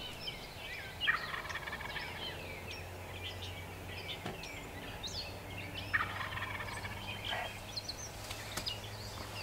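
Wild turkey gobbling twice, about five seconds apart, with songbirds chirping around it.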